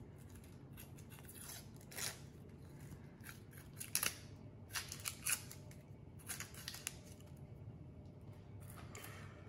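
A kitchen knife cutting and peeling the dry, papery skin off a hand-held onion: faint, irregular crisp snips and crackles, roughly one a second.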